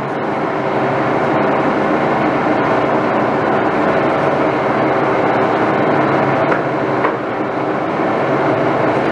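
Electric motor-driven shop machinery running steadily with a constant hum, plus a few faint clicks.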